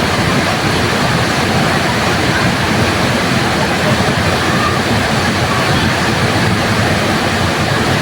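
Waterfall: a steady, dense rush of falling water, even and unbroken throughout.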